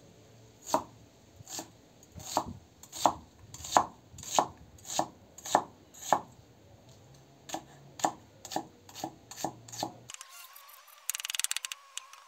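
Cleaver slicing an onion into strips on a wooden cutting board. Each chop is a sharp knock of the blade on the board, about one and a half a second. After a short pause comes a run of quicker, lighter chops. Near the end the sound turns thin, with a rapid run of small clicks.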